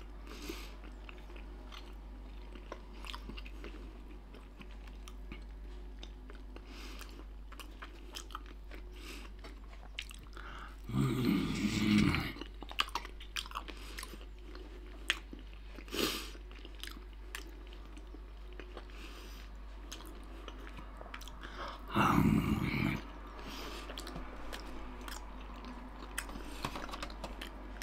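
A person chewing and biting slices of grilled pork belly: a steady run of small wet mouth clicks, with two brief louder low sounds about eleven and twenty-two seconds in.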